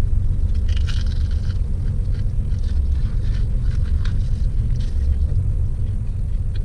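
Crunching bites and chewing of crisp-skinned spicy fried chicken, with the loudest crackle about a second in and smaller crunches every second or so after. Under it runs a steady low rumble, like a car idling, heard inside the cabin.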